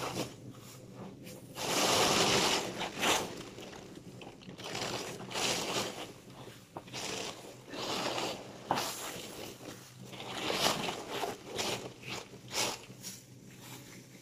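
Black plastic garbage bag rustling and crinkling in irregular bursts as gloved hands rummage through the rubbish inside it, loudest about two seconds in.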